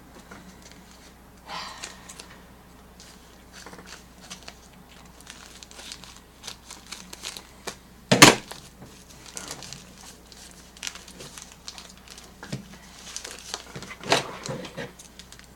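Packaging being handled and opened: paper or plastic crinkling and tearing in scattered rustles, with one sharp, loud snap or knock about eight seconds in.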